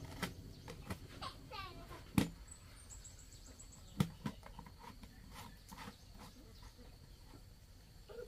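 Outdoor farmyard background: an animal's short run of descending chirps, a faint steady high whine, and two sharp knocks, the loudest sounds, about two and four seconds in.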